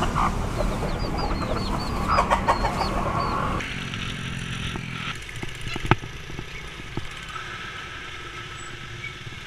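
Chicks peeping in short high cheeps, about three a second, with a hen clucking low about two seconds in. A little past three seconds the sound cuts to the steady engine and road noise of a motorbike being ridden.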